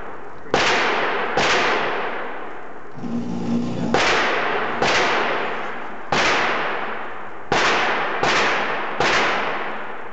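Gunshots on an indoor firing range: eight sharp reports at irregular intervals, each followed by a long echoing tail off the range walls.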